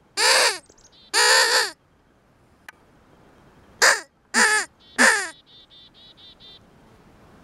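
Hand-blown game call sounded in five short, harsh calls, each sliding down in pitch: two near the start, then three in quick succession after a pause. A quick run of faint high chirps follows.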